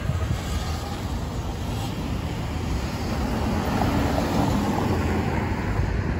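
City street traffic: cars driving past close by with a low rumble of engines and tyres. It gets a little louder about four seconds in as an SUV passes.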